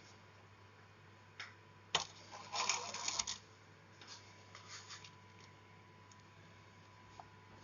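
Hands handling small parts while fitting a water heater hose: a couple of sharp clicks, then about a second of rustling and scraping, with fainter handling after, over a faint steady hum.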